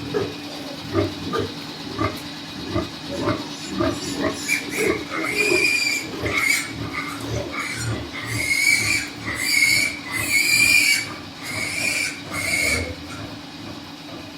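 Pigs in a pen: a group of domestic pigs grunting in short repeated grunts, with several joining in high squeals from about four seconds in that are loudest near the middle.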